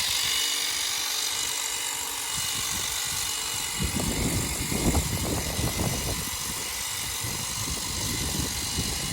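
Battery-powered Ego telescopic hedge trimmer running with a steady high whine, its blades cutting through hedge foliage with irregular crackling and rustling from about four seconds in.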